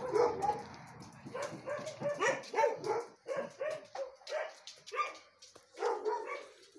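Several dogs barking repeatedly, short barks in quick irregular succession that overlap, thinning out near the end.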